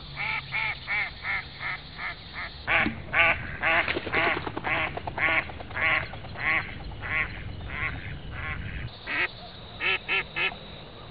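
A long run of short, repeated pitched calls that starts abruptly: quick and close together at first, then louder and more spaced from about three seconds in, with a brief lull near nine seconds before a few more. A steady low hum runs underneath.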